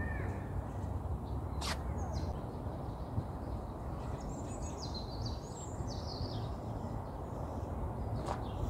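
Wind buffeting the microphone as a steady low rumble, with birds chirping faintly a few seconds in.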